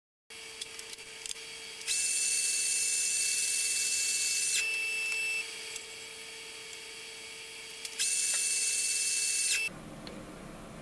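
A small motor's high-pitched whine, starting and stopping twice: first about two seconds in for a couple of seconds, then again near the end for a second and a half, over a steady low hum with a few light ticks.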